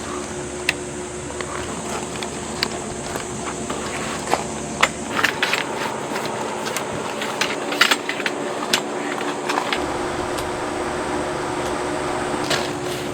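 Steady hum of a camping air conditioner running in the tent, with scattered light ticks and taps over it.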